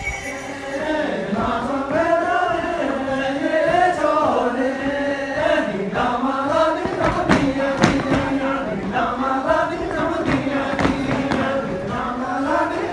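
A group of men singing a slow, chant-like dance song together, with a few sharp knocks from the dancers' steps near the middle.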